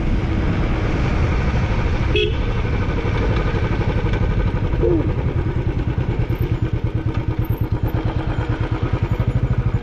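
Motorcycle engine running under way, a steady low throb with an even pulsing beat.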